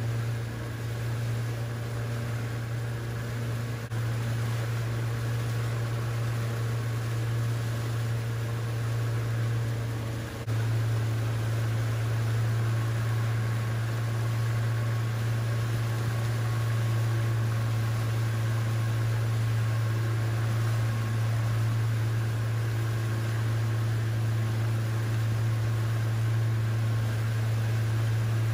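Motorboat engine running steadily, a low drone that steps up slightly about ten seconds in, with a steady hiss of water and wind over it.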